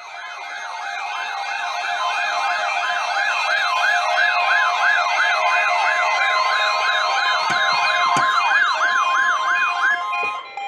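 Electronic siren in a fast yelp, its pitch rising and falling about three times a second. It fades in over the first couple of seconds and stops about ten seconds in. A steady high tone sounds alongside it for a few seconds past the middle.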